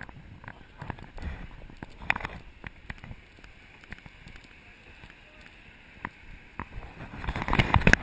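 Footsteps on wooden stairs and a wooden footbridge deck, heard as scattered knocks and thumps with the action camera jostling, over a light hiss of open-air ambience. Near the end a louder rush of noise swells up with more knocks.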